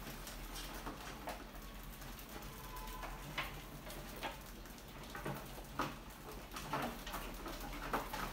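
Many rats scrabbling over a wire-mesh lid and a glass tank: scattered claw clicks and light taps, with several louder knocks in the second half, over a low steady hum.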